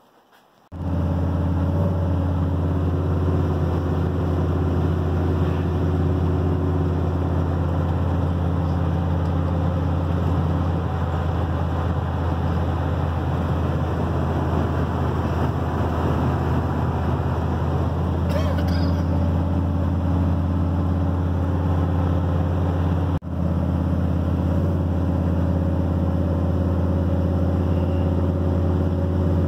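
Older Chevrolet pickup truck cruising, its engine and exhaust droning steadily inside the cab. The sound cuts out for a moment about 23 seconds in and picks straight up again.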